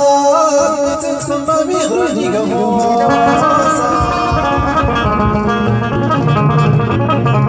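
Live Tashelhit (Amazigh) song: a man singing an ornamented melody into a microphone, backed by an electronic keyboard, through a sound system. A keyboard beat comes in about halfway through.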